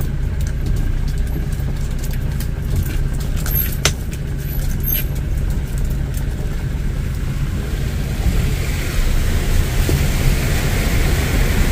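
Motorbike engine running steadily on the move, with a couple of sharp rattling clicks near the middle and wind noise on the microphone rising over the last few seconds.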